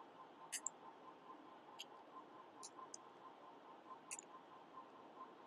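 A handful of faint, sharp computer-keyboard keystroke clicks, some in quick pairs, spaced irregularly over low background hiss.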